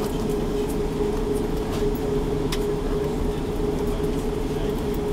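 Cabin noise inside an Airbus A340-600 as it taxis after landing: a steady low rumble with a constant mid-pitched hum over it, and one brief click about two and a half seconds in.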